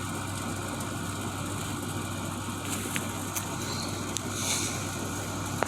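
Steady low background hum with a few faint clicks and a brief soft hiss about three-quarters of the way through.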